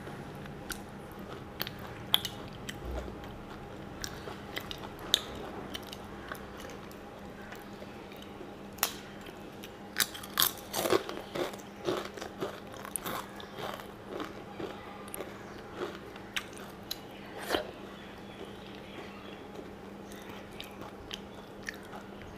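Close-up eating sounds: crunching and chewing of food, with crisp fried papad among it, and fingers mixing rice on a steel plate. These come as scattered crunches and clicks, busiest about halfway through, over a steady low hum.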